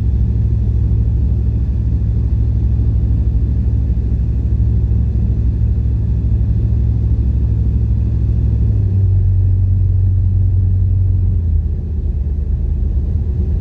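Light high-wing aircraft's engine and propeller droning steadily at approach power on final approach, mixed with wind rush; the low note shifts about nine seconds in.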